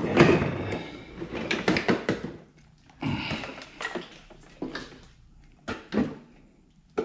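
Drawers of a metal rolling tool cart being pulled open and pushed shut, giving a string of knocks and rattles, busiest in the first two seconds and then single knocks every second or so.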